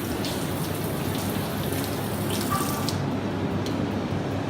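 Shower running: a steady spray of water with scattered splashes.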